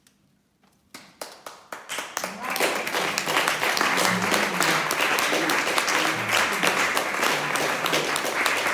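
Audience applause: a few scattered claps about a second in, quickly building into full, steady applause, with voices mixed in.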